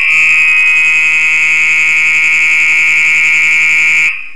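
Apartment building fire alarm sounding during an alarm test: one loud, steady, high-pitched tone that cuts off suddenly about four seconds in.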